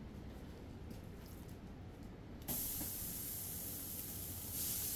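Raw chicken breasts sizzling as they are laid onto a hot, oiled barbecue grill plate at about 300 degrees. The sizzle starts suddenly about halfway in and grows louder near the end.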